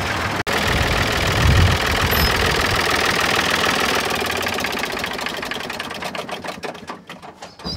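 David Brown 885 tractor's three-cylinder engine running with an even knocking beat, heard close to the open engine bay, growing fainter near the end.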